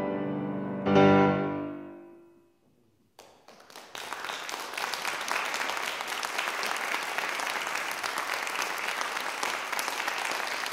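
Bösendorfer concert grand piano: a final chord struck about a second in rings and dies away into a brief silence. An audience then breaks into steady applause, starting with a few claps and filling out a second later.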